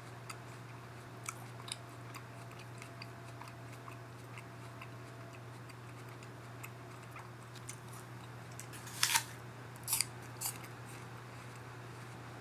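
A person eating a raw apple: small wet clicks of chewing, and three loud crisp crunches close together a little past the middle. A steady low hum runs underneath.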